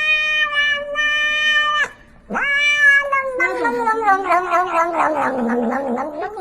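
An animal making two long drawn-out calls. The first holds one pitch for about two seconds. After a short break, the second slides downward and wavers toward the end.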